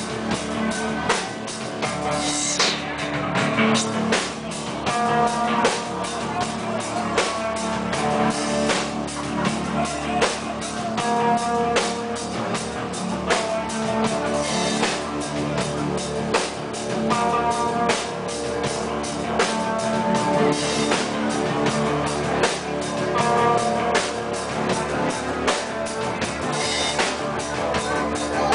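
Sludge metal band playing live: electric guitar held over a drum kit beating steadily.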